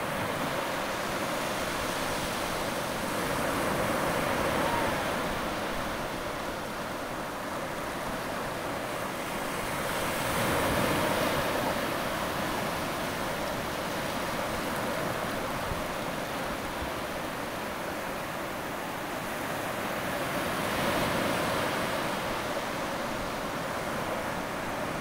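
Ocean surf washing up a sandy beach: a steady rush that swells three times as waves come in.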